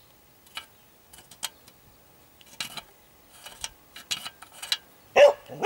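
A series of light clicks and clatter, then a dog barking twice, loudly, near the end.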